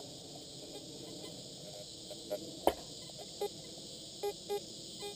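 Fisher F75 metal detector giving short beeps, about five, mostly in the second half, as its coil sweeps over grass and picks up targets in the ground. A single sharp click about halfway through is the loudest sound, over a steady high hiss.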